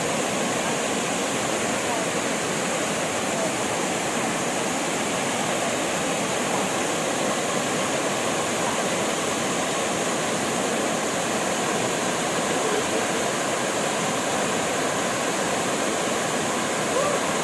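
Waterfall: water rushing steadily down tiers of rock, a constant even noise that does not change.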